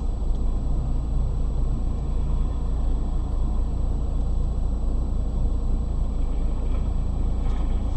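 Steady low rumble of a moving car, engine and road noise, with no impact or sudden event.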